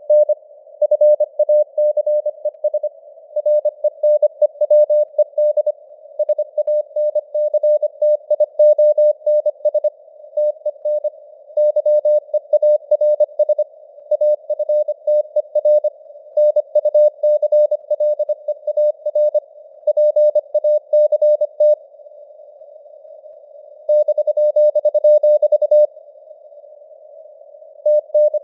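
Computer-generated Morse code (CW) sent at 25 words per minute: a single tone near 600 Hz keyed on and off in dots and dashes over a narrow band of simulated radio-receiver hiss. There is a pause of about two seconds, then an unbroken tone of about two seconds near the end.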